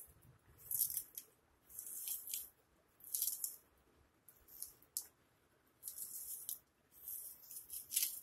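A small knife slicing through a raw peeled onion held in the hand: a string of short, crisp cuts, about one a second.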